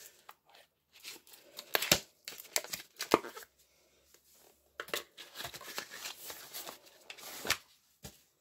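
Packaging being handled and torn open. There are two spells of crinkling and rustling, about a second in and again around five seconds in, each with a few sharp snaps.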